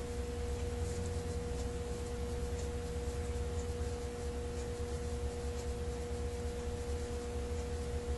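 Steady electrical hum: a constant tone with fainter overtones above a low rumble, unchanging throughout; background room tone with no work sound.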